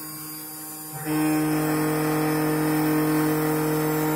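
Desktop CNC router milling a copper-clad circuit board: the spindle and stepper motors run with a steady hum. About a second in it gets much louder as the bit cuts along the board, then holds a steady, even whine.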